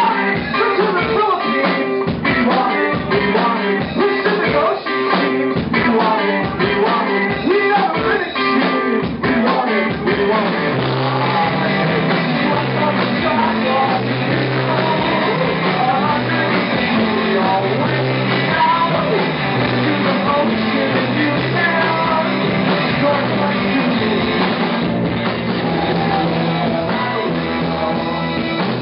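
A rock band playing live, with a man singing over electric guitar, electric bass, drums and keyboard.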